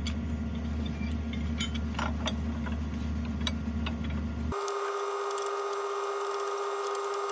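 Excavator's diesel engine running steadily at idle, with a few light metallic clicks. About four and a half seconds in, the rumble cuts off abruptly and a steady high whine takes over.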